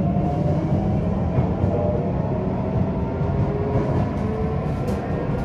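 Sotetsu 8000 series electric train running, with the whine of its Hitachi IGBT inverter and traction motors as several thin tones slowly sliding in pitch over the rumble of the wheels on the rails. A few sharp clicks come near the end.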